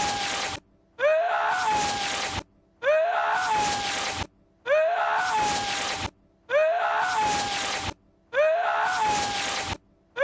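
A man's sneeze-like vocal outburst, looped: a short rising cry breaking into a long hissing breath, repeated about every two seconds with brief silences between.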